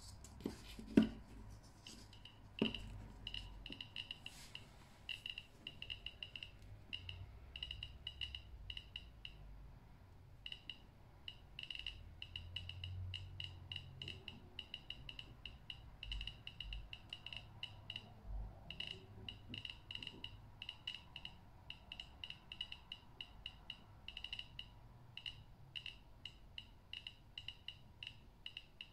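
Handheld radiation detector chirping for each count it registers, a rapid, irregular stream of short high beeps, held against the radium-painted dial of an old watch; the fast count rate is the sign of the radium's radioactivity. Two sharp knocks of handling come near the start.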